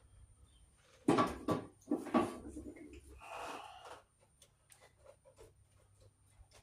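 Handling noise from stiff 12-gauge electrical wires being gathered and worked in a junction box: two clattering scrapes about one and two seconds in, a shorter scrape a little later, then scattered light clicks.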